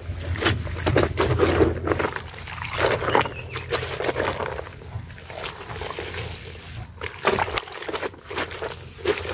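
Wet clothes being hand-scrubbed and squeezed in a plastic bucket of soapy detergent water: the water sloshes and the fabric squelches in uneven strokes.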